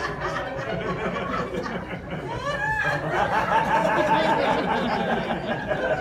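Audience laughing and chattering, many voices overlapping.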